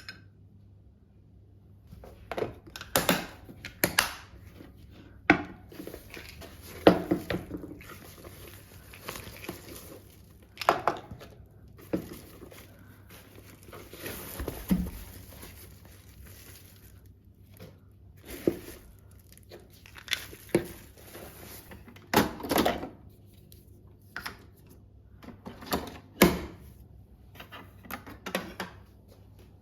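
Kitchen items being handled and set down one after another: irregular knocks and taps of containers and jars, with some crinkling of plastic packaging, over a low steady hum.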